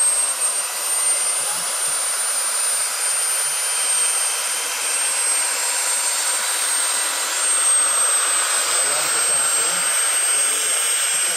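Turbine engine of a large scale-model AS-332 Super Puma helicopter, a JetCat SPT5 turboshaft, running on the ground with a steady high whine over a rushing hiss as the main rotor spins up.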